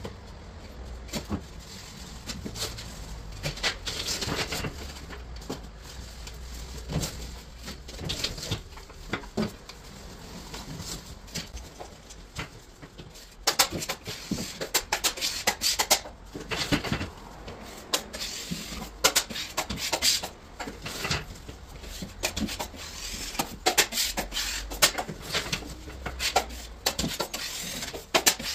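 Drywall finishing tool scraping and rubbing as it spreads joint compound along plasterboard seams, with irregular sharp clicks and knocks from the tool throughout.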